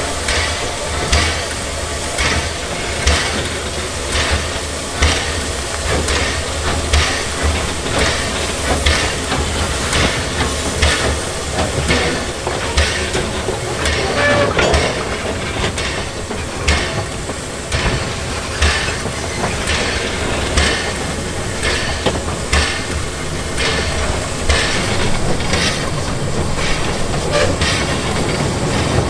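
Small tank steam locomotive running under steam, its exhaust chuffing in a steady rhythm with a hiss of steam, over a continuous low rumble and clatter of the wheels on the track.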